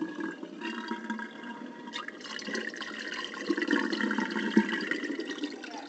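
Kenmore dishwasher draining: the drain pump runs and water rushes out through the freshly cleared drain hose. This is the sign that the clog is cleared and the drain is working again.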